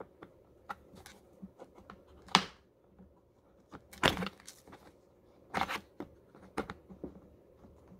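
Hard plastic parts clicking and scraping together as a plastic piece is pushed against a Sun Joe SPX3000 pressure washer's housing, its tab failing to snap into its slot. Scattered short clicks and knocks, the sharpest about two and a half seconds in and again around four seconds.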